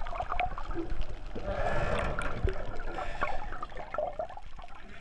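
Water gurgling and bubbling around a camera held just under the surface, with many small clicks and knocks. The swirl swells about two seconds in.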